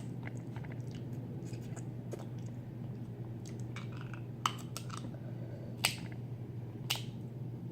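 Close-up eating sounds of snow crab and crawfish: a run of sharp clicks and snaps of shell and mouth, with a few louder snaps in the second half.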